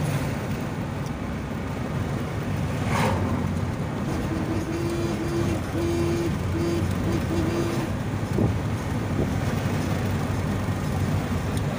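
Road noise inside a moving car: a steady low rumble of engine and tyres. About four seconds in, a run of short, evenly pitched beeps sounds on and off for about three seconds.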